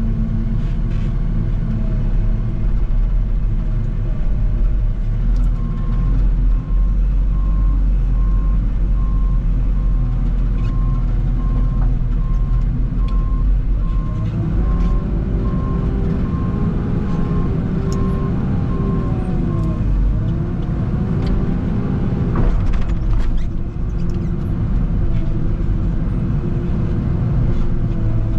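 A heavy machine's engine running with a steady low rumble. Its pitch climbs under load about halfway in, then eases back. A backup alarm beeps about once a second for much of the time.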